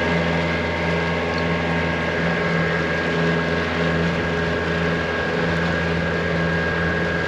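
Boat engine running steadily at a constant speed, with a continuous mechanical hum and hiss.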